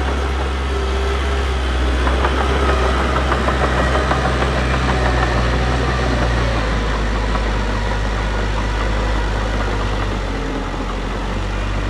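Heavy diesel engine of earthmoving machinery running steadily. Its low note shifts about halfway through.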